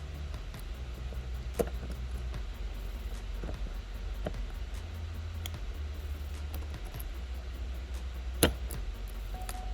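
Light clicks and taps of a new back glass panel being test-fitted against an iPhone 11's frame, with a sharp click about a second and a half in and the loudest one near the end. A steady low hum runs underneath.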